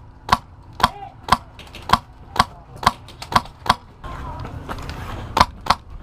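HPA airsoft rifle firing single shots at about two a second, each a sharp crack. Past the midpoint the shots pause under a rustle of movement, then two more come close together near the end.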